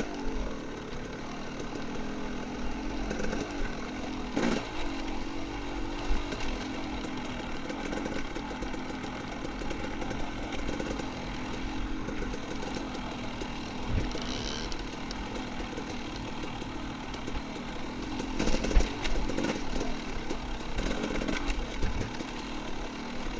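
Dirt bike engine running at low, mostly steady revs, with a few brief knocks.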